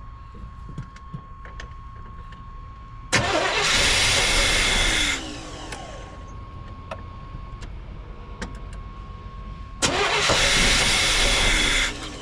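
1989 GMC Sierra's engine cranked twice on the starter, about two seconds each time, trying to fire but not starting. This is the no-start the owner puts down to no fuel reaching the injectors.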